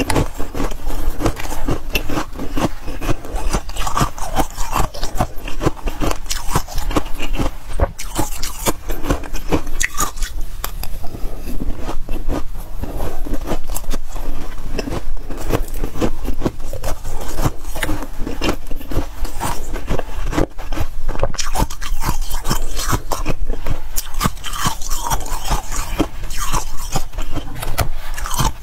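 Freezer frost being bitten and chewed up close, a fast, dense run of crunches and crackles.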